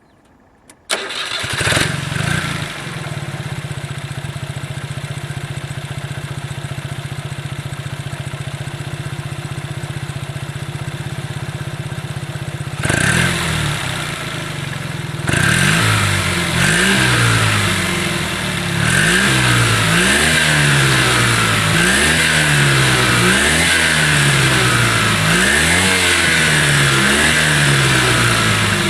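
1986 Subaru Sambar truck (M-KT2) with its small two-cylinder engine, started about a second in and idling steadily through its exhaust. In the second half it is revved in short, regular blips, its pitch rising and falling every couple of seconds.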